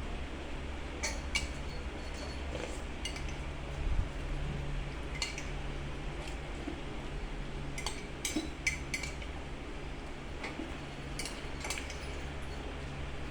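Utensils clinking against a dish while eating: a dozen or so light, scattered clinks at irregular intervals, a quick cluster of them about eight seconds in. A steady low hum runs underneath.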